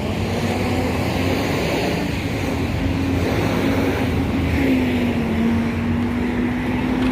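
Road traffic at the intersection: a passing motor vehicle's engine running with a slowly shifting pitch over steady tyre and road noise.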